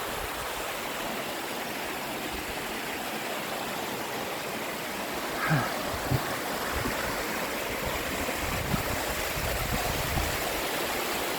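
Small mountain waterfall: steady rushing and splashing of water, with a couple of brief low knocks about halfway through.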